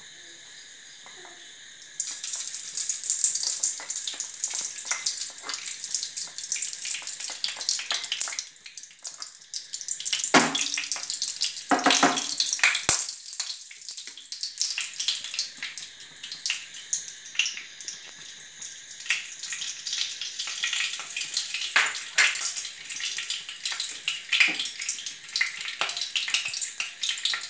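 Ghee sizzling and crackling as it melts in a hot nonstick frying pan. A steady faint hiss gives way to dense crackling about two seconds in, and the crackling grows louder for a few seconds near the middle.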